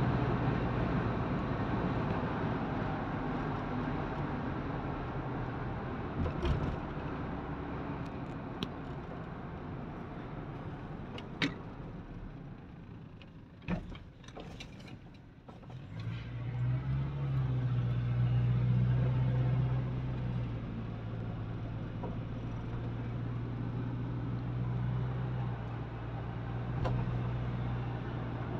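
A car driving, heard from inside the cabin: steady road noise with a low engine hum. The sound dips for a few seconds about halfway through, then the engine hum comes back louder. A few brief clicks are heard.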